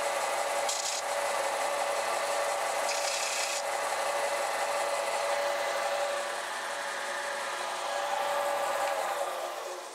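Belt sander running, with the edge of a small printed circuit board pressed against the moving belt, giving a harsh hiss twice in the first four seconds. Near the end the sander is switched off and winds down to a stop.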